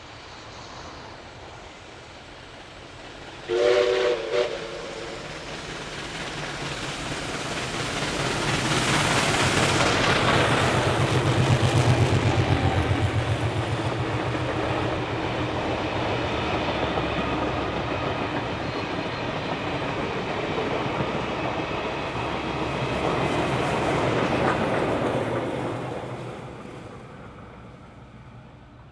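Steam-hauled train passing: two short blasts of a steam whistle sounding several notes at once come about three and a half seconds in. The locomotive's exhaust beats and rumble then build to their loudest around twelve seconds in, followed by the carriages rolling past with wheels clicking over the rails, fading away near the end.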